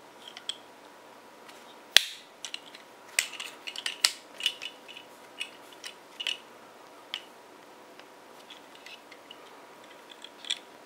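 Hard plastic parts of a Transformers Combiner Wars Offroad action figure clicking and snapping as it is folded into robot mode by hand, with tabs pushed into place. A sharp snap about two seconds in, a run of clicks a second later, then scattered clicks with a quiet stretch before a few more near the end.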